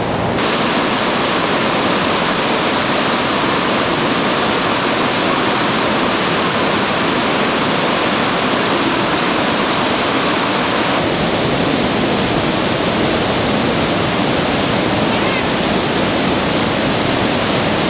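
Steady roar of rushing white water from the Niagara River rapids, a constant even rush that turns slightly duller about eleven seconds in.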